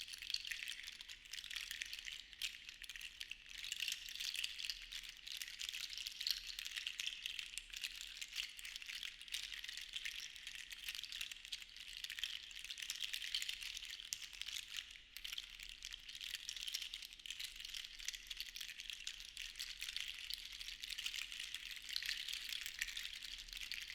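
Seashells rattling against one another in a dense, continuous clatter of tiny clicks, rising and easing in slow swells.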